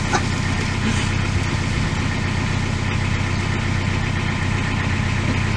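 Boat's inboard engine running steadily with a low, even hum.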